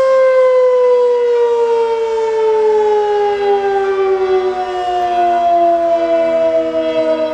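L138 combination electric siren, a 1 kW machine, winding down after a steady blast of the fire-alarm signal: its wail slides slowly and evenly down in pitch as the rotor coasts. A fainter steady lower tone runs beneath it.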